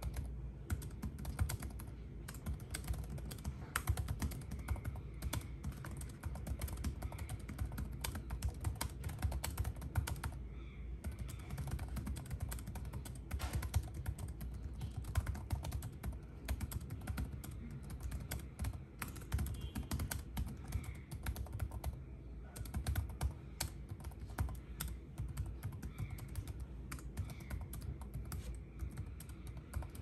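Fast, continuous typing on a laptop's built-in membrane keyboard: a steady patter of many quick, soft key presses with no pauses.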